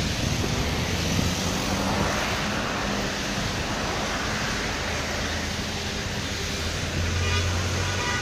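City street traffic: cars and other vehicles running along the road, with a nearby engine's low hum getting louder near the end.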